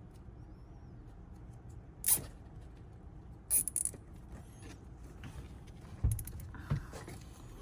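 Handling of plastic car interior trim and cable: a few sharp clicks and creaks, then a couple of duller knocks, over a steady low hum.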